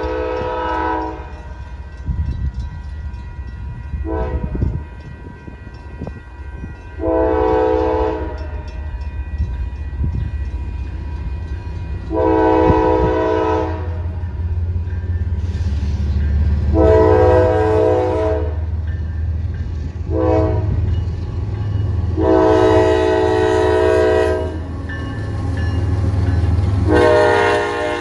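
Kansas City Southern diesel freight locomotives approaching and passing, the lead unit's multi-chime air horn blowing a grade-crossing sequence of long blasts broken by two short ones. Under the horn the low rumble of the diesel engines swells from about a third of the way in as the locomotives draw near.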